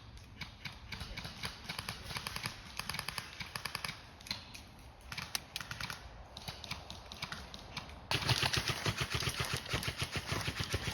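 Airsoft guns firing rapid full-auto strings, a fast clatter of sharp clicks that grows louder and denser about eight seconds in.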